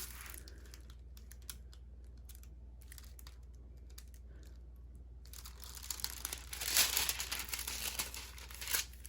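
Quiet handling with a few light clicks, then from about five seconds in, plastic packaging of a diamond painting kit crinkling and rustling as it is handled, loudest about seven seconds in.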